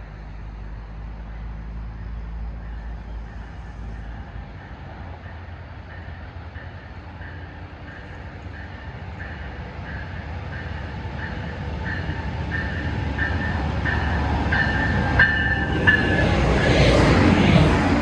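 A train approaching and growing steadily louder, with a faint tone pulsing about twice a second. Near the end come two sharp clicks, then the loud rush of the train reaching and passing.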